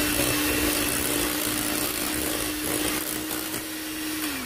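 Black+Decker electric hand mixer running at a steady speed with a constant whine, its beaters whirring through butter batter as an egg is beaten in. The motor winds down and stops near the end.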